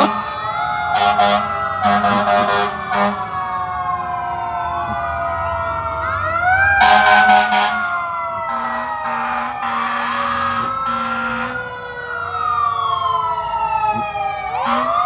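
Several fire truck and police sirens wailing at once, their pitches rising and falling and overlapping, with repeated short horn blasts: a cluster about a second in, a louder one about seven seconds in, four in a row a little later, and another at the end.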